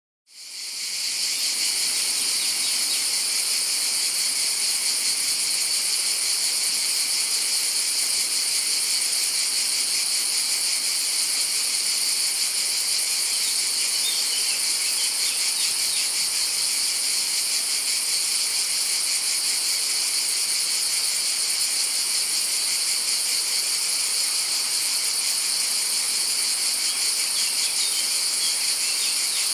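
Cicadas singing: a dense, steady, high-pitched buzzing that fades in over the first second and then holds unchanged.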